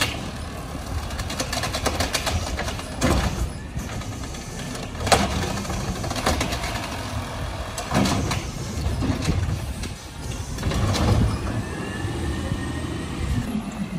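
Automated side-loader garbage truck emptying a wheeled cart: the engine runs under the hydraulic lift arm, with several sharp metallic clunks as the cart is raised, shaken out into the hopper and set back down. The loudest clunk comes about a third of the way in.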